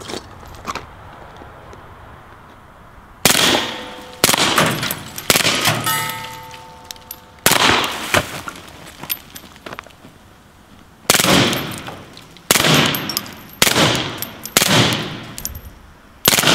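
Suppressed VZ 61 Skorpion in .380 bump-fired from its semi-auto action: about nine short bursts of rapid shots with pauses between them. A metallic ring hangs on briefly after the third burst.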